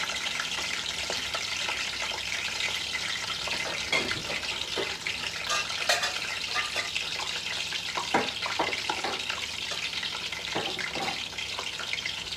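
Aubergine slices shallow-frying in hot oil in a stainless steel pan: a steady sizzle with scattered pops and crackles.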